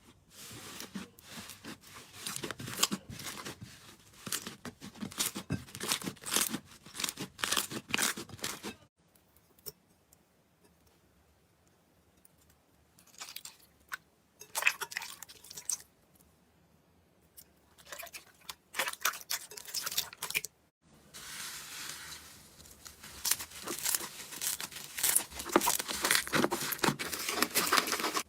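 Slime being squeezed and stretched by hand, giving dense crackling and popping in several runs with short quiet gaps between.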